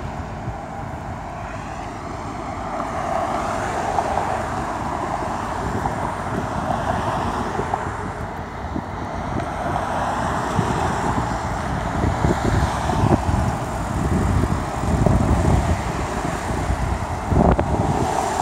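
Road traffic, with cars passing close by, over gusts of wind buffeting the microphone.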